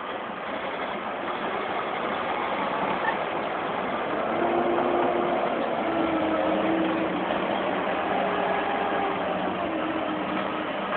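Crawler bulldozer's diesel engine running under load as it pushes a large log, a dense steady engine noise with a clearer engine note coming in about four seconds in and holding.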